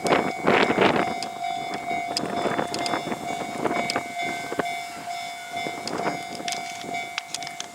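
A Japanese level-crossing warning alarm sounds with a steady electronic tone. Over it comes the rushing noise of a JR 313-series electric train passing, loudest in the first second, with scattered clicks of wheels on rail joints.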